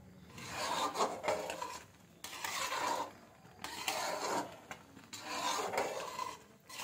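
A spoon scraping and stirring around a pan of melting jaggery, in repeated strokes about every second and a half.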